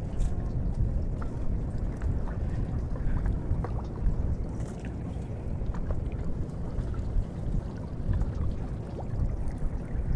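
Steady low rumble aboard a small river fishing boat, with scattered faint clicks and drips as a fine-mesh kachki net is hauled in by hand.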